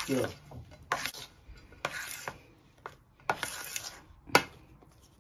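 Thick gram-flour sev dough being stirred and beaten in a stainless steel bowl, the utensil scraping and clicking against the bowl in strokes roughly once a second.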